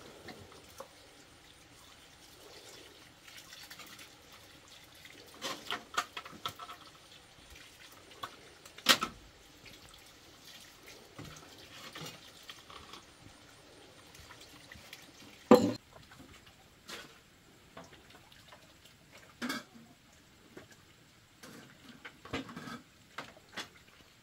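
Water running from a hose onto a pile of sand, with a low hiss and splashing. Scattered sharp knocks and clatters come through it, the loudest about two-thirds of the way through.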